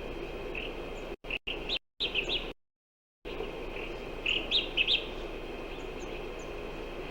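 Small songbirds chirping in short clusters of quick, high notes over a steady rushing background noise. The sound cuts out completely several times for a moment, longest about two and a half seconds in.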